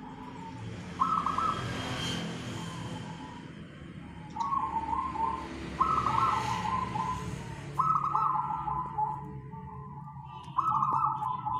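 A caged zebra dove (perkutut) of the local strain cooing: five rolling coo phrases, each opening on a higher note and stepping down, about every two seconds.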